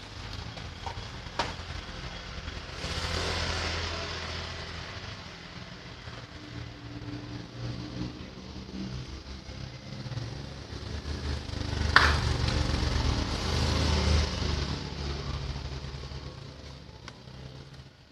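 A vehicle engine running steadily, getting louder twice as if revved or passing, with a sharp click about twelve seconds in.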